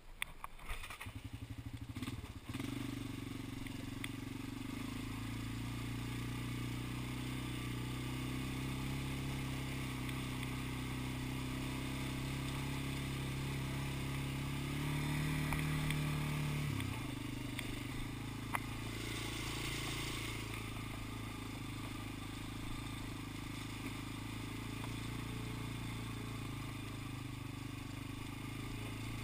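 Single-cylinder four-stroke engine of a 1986 Honda FourTrax 250 ATV, firing unevenly for the first couple of seconds and then running steadily as the ATV rides off. Its pitch climbs for a few seconds and drops suddenly about halfway through, as on a gear change, then holds steady.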